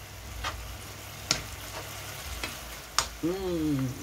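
Metal spoon stirring garlic spinach in a nonstick frying pan, clicking sharply against the pan a few times over the sizzle of the frying greens.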